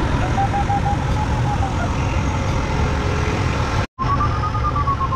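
Glider variometer beeping in quick pulses, its pitch sliding down and then up as the rate of climb changes, over a steady rush of airflow noise in the cockpit. The pulsed tone signals that the glider is climbing in lift. The sound cuts out for an instant about four seconds in.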